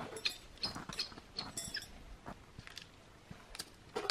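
Scattered short clicks, light scrapes and rustles as thin titanium parts of a folding camp stove are handled and fitted, mostly in the first two seconds, then a few isolated ticks.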